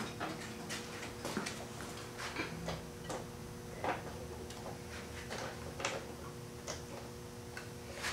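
Light, irregular clicks and taps of a plastic e-bike battery box being handled and set onto the bike's rear rack, over a faint steady hum.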